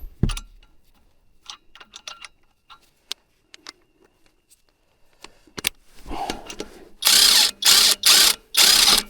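Light metallic clicks of tools and parts being handled, then four short, loud rasping bursts near the end as a bolt is driven into an engine cover.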